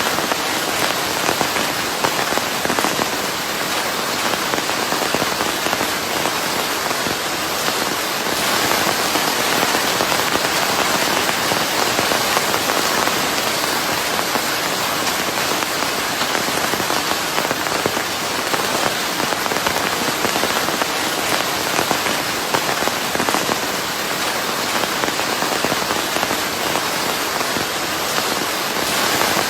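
Steady heavy rain falling and pattering on a surface, with a dense hiss like white noise mixed in.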